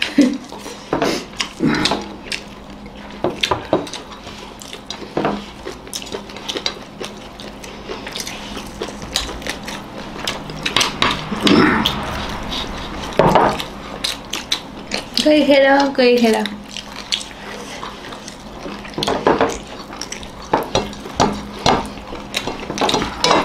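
Fingers mixing and scooping rice on plates, with many small clicks and taps of plates on the table and eating sounds. A brief vocal sound about halfway through.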